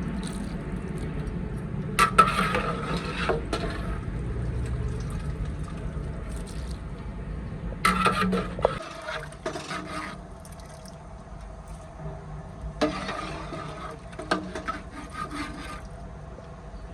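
Rubbing and scraping in short irregular bursts with water sloshing, over a steady low rush that stops suddenly about nine seconds in.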